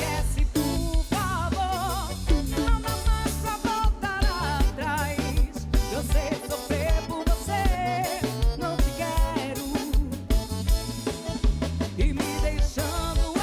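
A band playing a song: a steady drum-kit beat with snare and bass under a wavering lead melody with vibrato.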